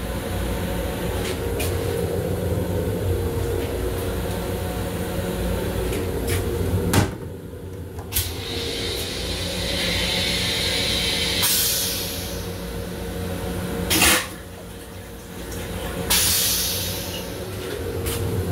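M7 railcar toilet flushing into its stainless steel bowl over the steady hum of the train car. A sharp knock about seven seconds in, then water hissing into the bowl for a few seconds, a loud sudden burst about fourteen seconds in as the bowl empties, and a brief hiss after.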